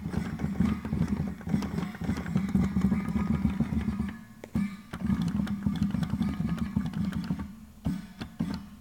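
Peterson 60-ohm pipe organ valve magnets clicking rapidly as the MIDI system opens and closes them, over the organ's pipes sounding a tune. The clicking breaks off briefly about four seconds in and again near the end.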